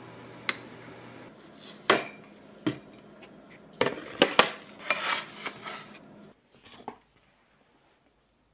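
A metal spoon clinking and scraping against a small ceramic ramekin and a glass jar as a spread is scooped out, a series of sharp clinks, then dishes and cutlery clattering as the ramekin is set down by a plate on a wooden tray; the clatter dies away near the end.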